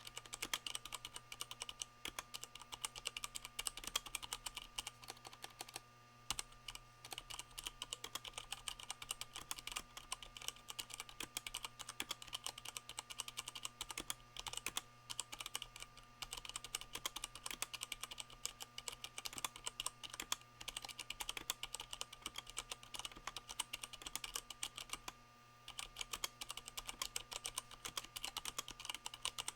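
Continuous fast typing on a Leopold FC660M mechanical keyboard with Cherry MX Brown switches fitted with O-rings, which damp the keycaps bottoming out. Rapid dense keystrokes with brief pauses about six seconds in and near the end.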